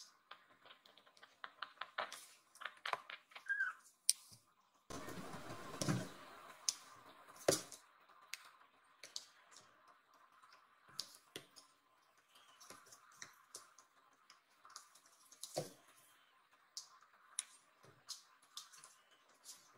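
Kittens' claws clicking and tapping on the floor as they walk and tussle: a scatter of light, irregular clicks.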